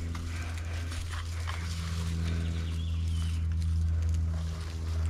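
Mugo pine branches rustling and small clicks from bypass hand pruners working through the needles, over a steady low machine hum.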